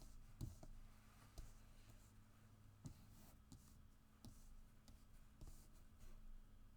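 Faint, scattered taps and clicks of tarot cards being handled and laid down, about one every second or less, over a steady low hum.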